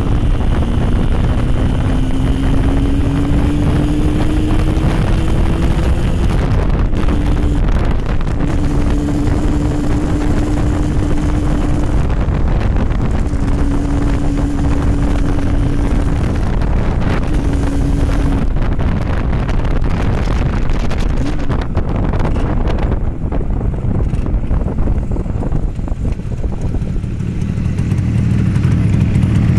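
Yamaha RD350's two-stroke parallel-twin engine running while the bike is ridden. Its note rises over the first several seconds, then holds steady, breaking off briefly a few times, and fades under the noise in the second half. Heavy wind buffeting on the microphone runs throughout.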